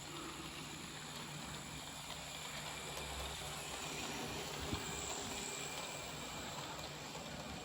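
Hornby OO gauge model Eurostar running on a test track: a steady whirr of the motor and wheels on the rails, with a single click just under five seconds in.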